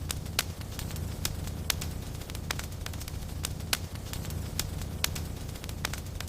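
Wood fire in a fireplace crackling, with sharp pops at irregular moments over a steady low rumble.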